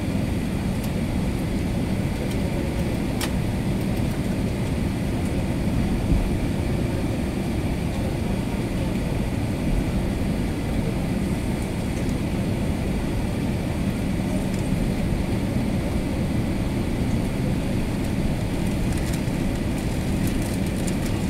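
Steady low rumble of an Airbus A380's engines and airframe heard from inside the passenger cabin while the aircraft taxis, with a faint even hum under it.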